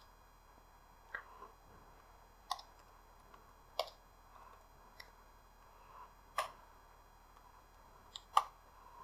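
Scattered, quiet key clicks from a computer keyboard, about one every second or so, with two in quick succession near the end.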